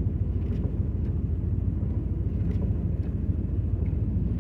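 Steady low rumble of engine and road noise heard inside a vehicle's cabin as it drives along slowly in four-wheel drive.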